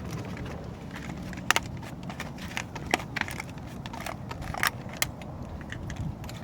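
Scattered sharp clicks and light knocks of tools and parts being handled, over a steady low rumble.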